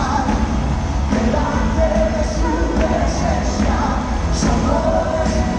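Live worship band and singers performing an upbeat song with a strong bass beat, amplified through a big arena sound system and echoing around the hall.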